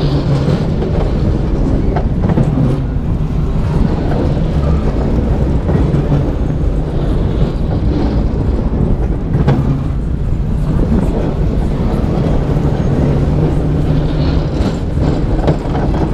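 MACK Wild Mouse roller coaster car's wheels rumbling and rattling along the steel track, with a couple of sharper knocks along the way.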